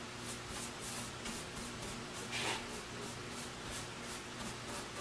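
Brush swishing back and forth as clear shellac is brushed onto a wooden slab, about three soft strokes a second, with one louder swipe about halfway through. A faint steady low hum runs underneath.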